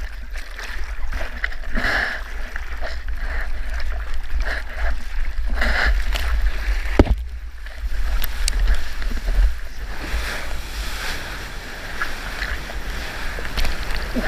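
Seawater rushing and splashing around a longboard riding through surf, with a heavy rumble of water and wind buffeting the action-camera microphone. There is one sharp knock about seven seconds in, and a steadier whitewash hiss through the second half.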